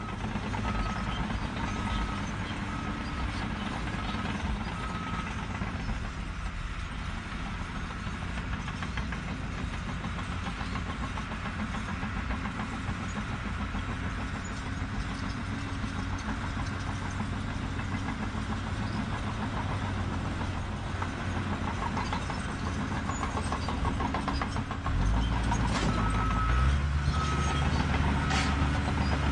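Engine of a piece of construction machinery running steadily, with a beeping alarm repeating at even spacing for the first few seconds and again near the end; the engine gets louder about 25 seconds in.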